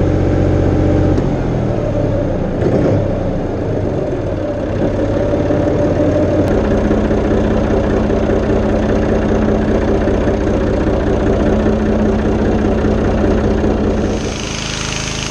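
Massey Ferguson 230 tractor's three-cylinder Perkins diesel running steadily just after being started to check the repaired fuel return lines for leaks. Its note shifts about six seconds in, and a hiss comes in near the end.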